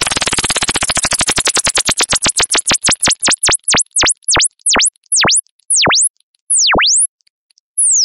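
Electronic ringtone: a single pure tone sweeping from very high down to very low pitch and back up, over and over. The sweeps slow steadily, from a fast buzzing flutter at first to long swooping dips about one a second near the end.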